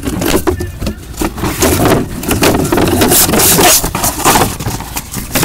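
Cardboard shipping case being handled and opened: a run of scraping and rubbing with irregular knocks, and the longest scrape about three seconds in.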